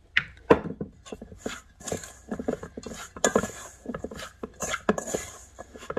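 Hand mixing chopped mushrooms and flour in a stainless steel bowl: a run of irregular scrapes and knocks against the metal bowl.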